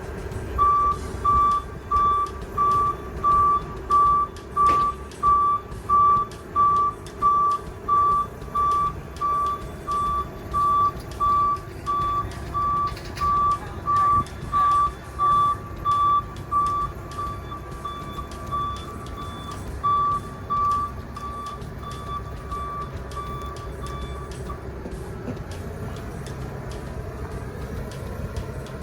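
Truck's backup alarm beeping steadily, about one and a half beeps a second, over the engine running as the truck reverses. The beeping stops a few seconds before the end.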